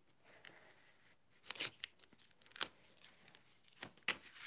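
Faint scraping and crackling of a cardstock panel being peeled off its adhesive tape with the flat applicator tip of an un-du adhesive remover bottle, in a handful of short scrapes.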